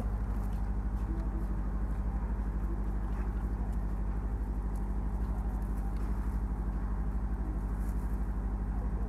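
An engine idling steadily, a low hum with a fast, even throb.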